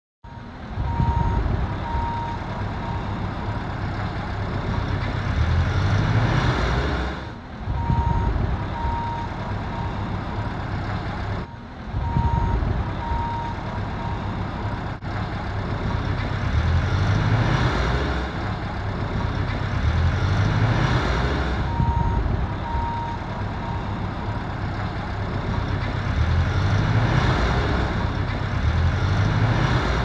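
Diesel engines of construction machines, a backhoe loader and a telehandler, running and revving, the engine pitch rising several times as they work. A reversing alarm beeps in short runs of a few beeps at intervals.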